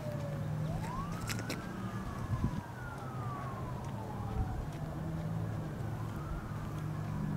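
A distant emergency-vehicle siren in a slow wail, rising and falling in pitch several times, over a low steady hum of engines.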